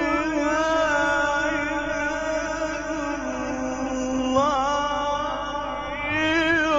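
A male Quran reciter's voice in the melodic mujawwad style, drawing out one long phrase in held, wavering notes. The pitch dips lower about halfway through, then climbs again in quick ornamented turns near the end.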